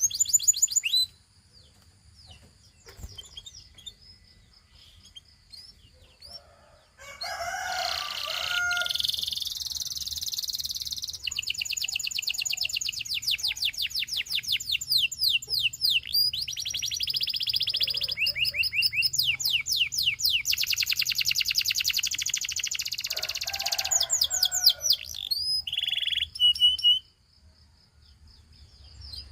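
Gloster canary singing: fast rolling trills of quick, high sweeping notes in long phrases. A short burst opens, then a few seconds of near quiet, then a long run of song that stops a couple of seconds before the end.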